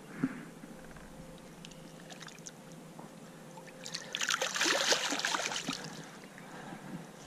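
Splashing in shallow water as a released channel catfish kicks free of the hands and swims off, a couple of seconds of churning about four seconds in. A brief knock just after the start.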